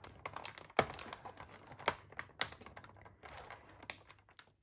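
Small plastic items in a nail kit's plastic insert tray being handled: a handful of sharp clicks and taps, the loudest about two seconds in, with light rustling between.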